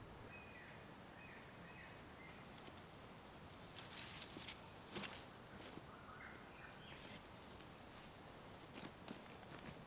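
Faint scattered crackles and rustles of footsteps and a long wooden pole moving through dry leaf litter and twigs, with a few faint bird chirps.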